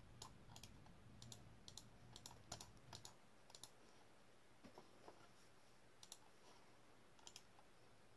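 Scattered soft clicks of a computer mouse and keyboard, several in quick pairs, while text is selected, copied and pasted into a spreadsheet.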